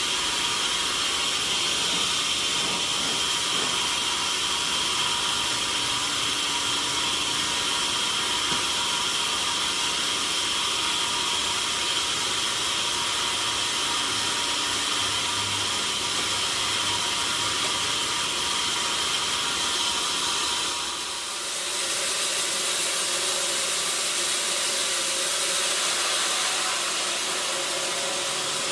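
Sawmill saw running through wood, a steady loud hiss with a thin whine over it. It dips briefly about two-thirds of the way through, then carries on.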